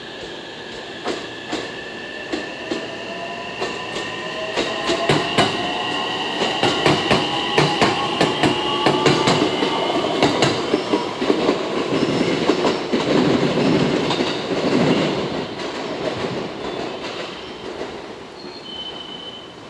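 JR West 227 series two-car electric train accelerating past: the traction motors' inverter whine sounds as several tones that climb steadily in pitch, while the wheels click over rail joints faster and faster. It is loudest as the cars go by, about two-thirds of the way through, then fades.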